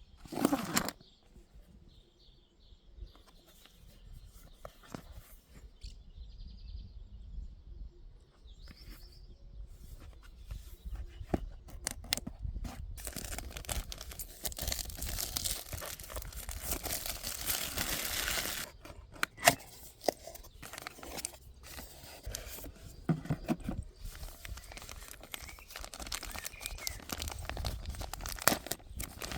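Packaging being unwrapped and handled by hand: crinkling and tearing, with scattered clicks and taps. The rustling is heaviest in the middle.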